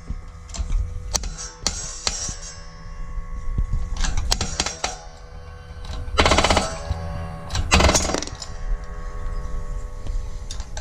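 Hydraulic shop press at work pressing the old bearings out of a tensioner pulley: scattered sharp metal clicks and clanks that ring, over a steady low hum, with two loud harsh grinding bursts about six and eight seconds in as the press forces the bearings through.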